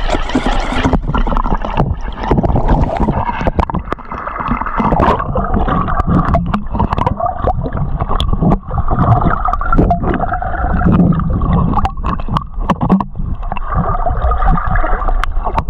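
Sea water heard from a waterproof action camera: splashing at the surface, then about a second in the sound goes muffled as the camera goes under. A low, gurgling underwater rush follows, with many sharp clicks and crackles.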